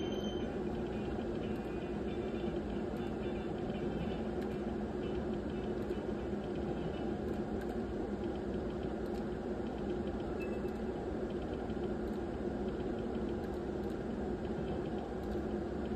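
A steady low hum and hiss of background machinery, with faint short electronic beeps a couple of times from a video slot machine as its reels spin.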